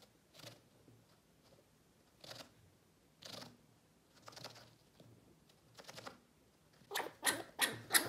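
Chinchilla scrabbling and scratching about inside a hollowed, carved pumpkin: a few short, scattered scrapes, then a quick run of louder scrapes, about three a second, near the end.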